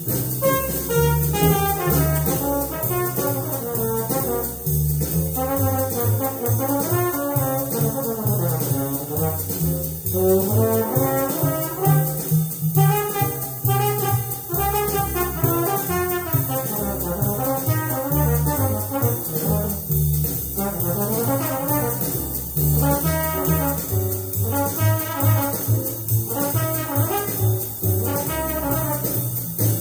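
Hard-bop jazz recording: a brass horn solo over walking bass and drums with a ride cymbal.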